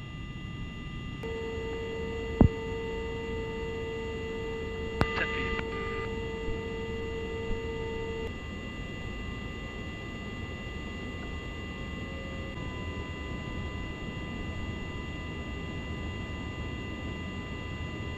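Steady in-flight rumble inside a tanker aircraft with an electrical hum and a few fixed whining tones. A louder hum tone comes in about a second in and stops about eight seconds in. There is a sharp click about two seconds in and a few smaller clicks between five and seven seconds.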